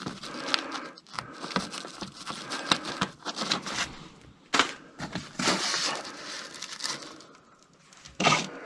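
Old records being flipped through and handled in a stack: rustling with scattered clicks and knocks, and one sharper crack about four and a half seconds in.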